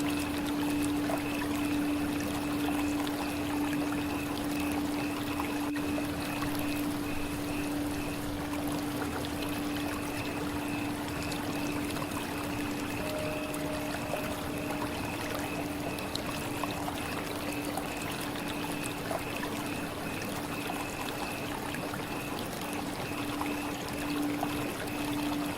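Steady flowing, trickling water, with a steady low hum held beneath it.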